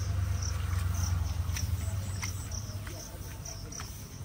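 Insects chirping in a regular pulse, a short high chirp about every half second, over a low rumble that eases after about three seconds. There are a few faint clicks and splashes from hands working seedlings into wet paddy mud.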